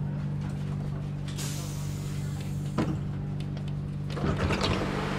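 Renfe Cercanías commuter train standing at the platform with a steady electrical hum. A hiss comes in about a second and a half in, a single knock falls near the middle, and after the door-open button is pressed a short run of clicks sounds as the passenger sliding door unlocks and opens.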